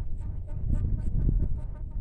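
Wind buffeting the microphone in gusts, a low rumble that swells around the middle, with a scatter of faint clicks.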